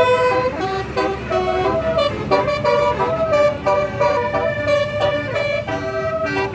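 Bus Basuri telolet horn playing a quick tune, its several horn tones stepping from note to note, over a low engine rumble.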